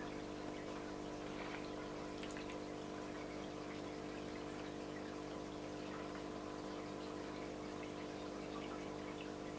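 Steady hum of a small water pump with a faint hiss of water, and a few faint ticks about two seconds in.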